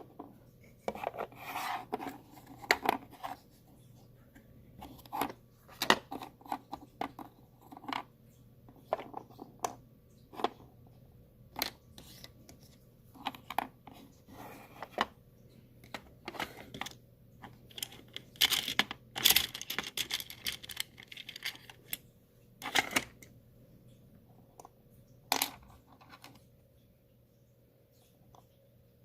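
Small plastic pieces of a Tyco Kitchen Littles miniature toy kitchen set being handled: irregular clicks, taps and short rustling scrapes, busiest about two-thirds of the way through, with a faint steady hum beneath.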